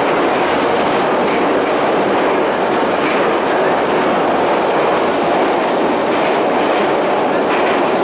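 Kyiv metro train running through a tunnel, heard from inside the passenger carriage: a steady, loud noise of wheels on rails and the moving car.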